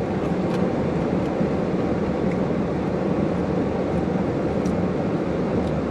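Steady low rumble inside a stationary car's cabin, with a faint steady hum under it and no distinct events.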